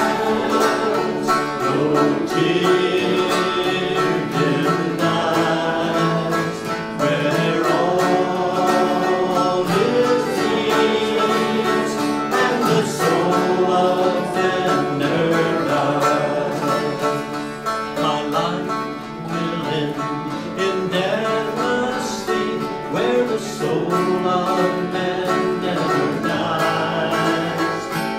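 A dulcimer picking a bright, plucked melody over acoustic guitar accompaniment: an instrumental break in a country-gospel song.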